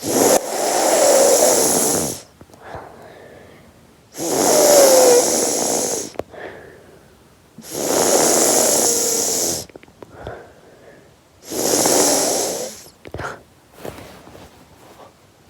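A person snoring: four loud snores, each lasting about two seconds, coming roughly every four seconds.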